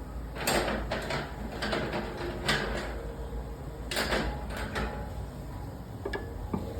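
A run of short knocks and scrapes, like hands handling a metal cover or fitting, then two light clicks near the end, over a steady low hum.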